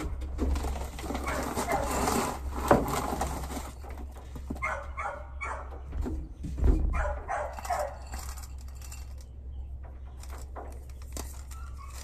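A dog whining in short high calls a few times, over the rattle and rustle of dry kibble being scooped and poured during the first few seconds.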